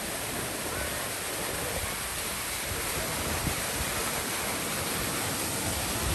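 Water pouring from a stone sculpture fountain and splashing into its base: a steady rushing hiss that grows slightly louder.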